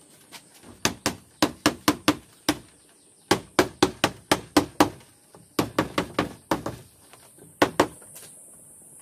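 Rubber mallet tapping a sliding-door track down onto a wardrobe panel: quick dull knocks, about three or four a second, in runs of six to eight with short pauses between, ending with a pair of strikes.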